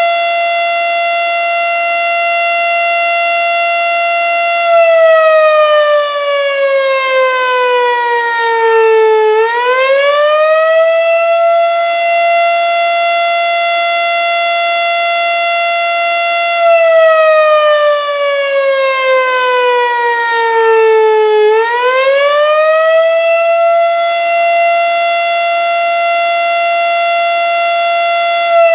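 Federal Signal STH-10 outdoor warning siren sounding the wavering attack signal: a loud siren tone holds steady for several seconds, slides slowly down in pitch, then swings quickly back up, twice.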